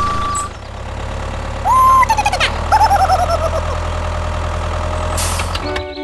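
Tractor engine running steadily at a low drone, which stops shortly before the end. Over it, a loud whistle-like tone comes about two seconds in, followed by a falling run of warbling chirps.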